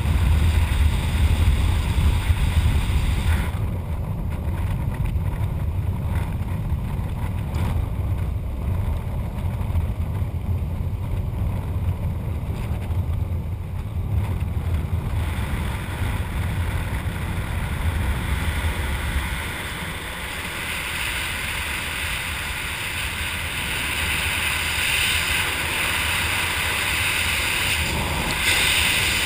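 Airflow buffeting the camera microphone while flying under an open ram-air parachute canopy: a steady low rumble that eases about two-thirds of the way through, giving way to a higher hiss.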